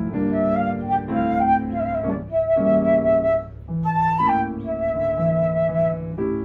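Flute playing a slow melody over piano chords: a short rising phrase, then two long held notes.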